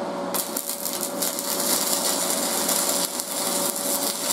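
Stick welding arc crackling steadily, starting abruptly about a third of a second in. The rod is run slowly at 110 amps, hot enough to burn a hole right through the steel.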